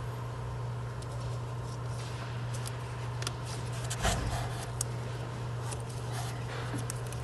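Scattered light clicks and one louder knock about four seconds in, over a steady low hum: hands working the ignition wires and fittings on a coil pack in the engine bay.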